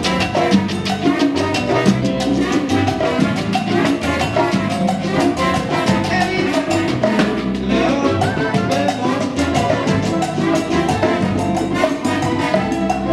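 Live Cuban salsa band playing: congas and timbales keep a dense, steady percussion rhythm under bass and keyboard.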